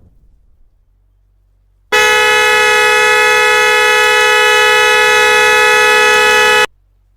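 A loud horn blast: one steady, unwavering blare that starts suddenly about two seconds in, holds for nearly five seconds, and cuts off abruptly.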